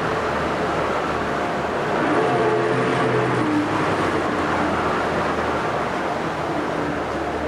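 1998 Mercury 115 hp four-cylinder two-stroke outboard running steadily in forward gear. Its revs rise briefly about two seconds in and settle back a second and a half later.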